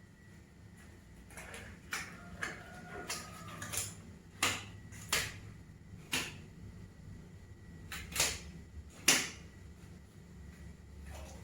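Latex examination gloves being pulled on: a string of sharp snaps and light clicks, with a short rubbery squeak about three seconds in.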